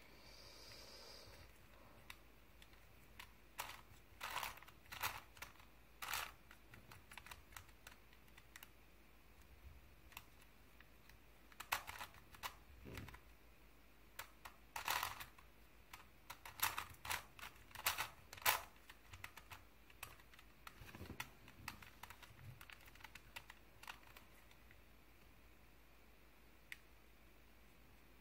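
Crazy 3x3 Plus Mars cube, a plastic twisty puzzle, being turned by hand: irregular clicks and clacks of its layers snapping round, in quick bunches with pauses between, thinning out near the end.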